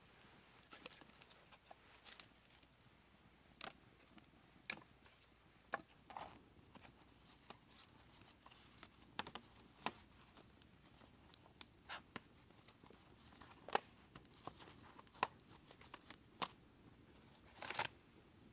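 Small campfire of split sticks crackling: irregular sharp pops and snaps, a second or so apart, with a longer rustle near the end.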